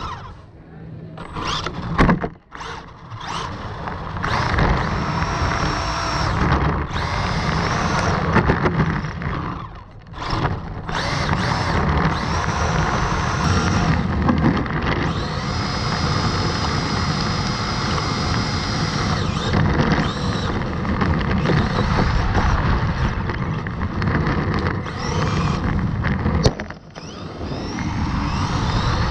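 Electric motor and drivetrain of a 1/16-scale Traxxas rally RC car whining as it speeds up and slows down, with tyre noise on rough pavement, heard from a camera mounted on the car. The whine drops away briefly a few times when the throttle is let off, about two seconds in, around ten seconds and near the end.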